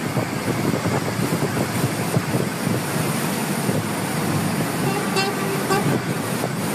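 Steady rushing noise of a flooded street in heavy rain with traffic, and a car horn sounding for about a second about five seconds in.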